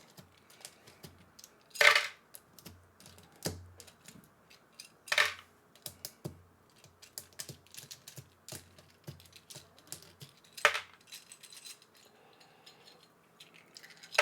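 Mechanical keyboard switches (Akko Stellar Rose) being pulled out of a hot-swap board with a switch puller: a run of small plastic clicks, with three louder sharp clacks about two, five and eleven seconds in.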